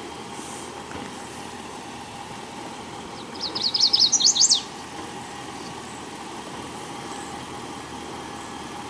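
A songbird sings one quick trill of about a dozen sharp chirps, climbing in pitch and lasting just over a second, about a third of the way in. Under it an off-road vehicle's engine idles with a steady hum.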